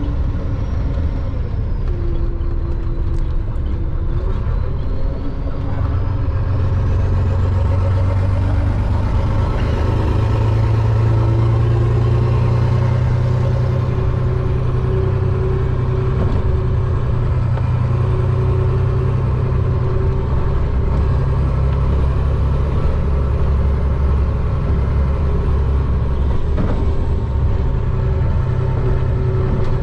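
Diesel engine of a Chenglong concrete mixer truck running steadily while the truck is driven, with a deep, continuous drone whose pitch shifts only slightly.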